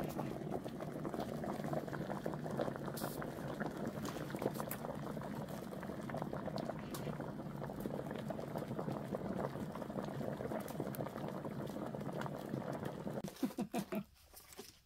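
A large pot of sweet potatoes and water boiling hard, with a steady thick bubbling that cuts off abruptly near the end.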